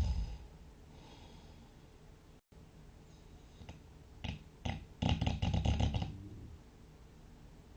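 A sleeper snoring: a loud snore tails off right at the start, a quiet pause follows, then two short snorts about four seconds in and one loud, rough snore lasting about a second.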